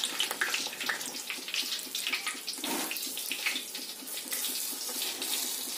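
Banana malpua batter deep-frying in hot oil in a kadai: a steady sizzle full of dense crackling.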